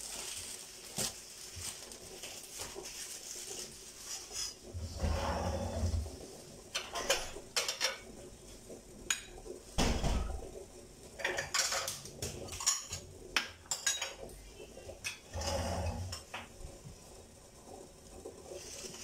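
Ceramic plates and a metal spoon clinking and knocking on a stone kitchen counter as they are handled and set down. There is a scattering of sharp clinks and a few dull thuds.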